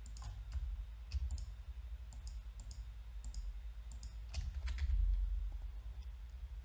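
Computer mouse clicks, irregular and scattered, with a few keyboard key presses, as objects are shift-clicked to select them and then grabbed with a key press. A low background rumble runs underneath and swells about five seconds in.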